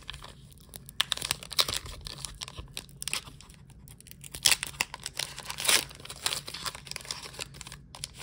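Pokémon booster pack foil wrapper being torn open and crinkled by hand, a run of irregular crackles and rips with the loudest tears about four and a half and five and a half seconds in.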